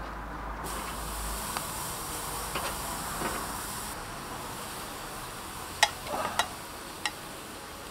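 Marinated chicken wings and pork fillet sizzling on a wire grill over a wood fire, the hiss starting suddenly under a second in as the meat goes on. A few sharp clicks come about six to seven seconds in, the first the loudest.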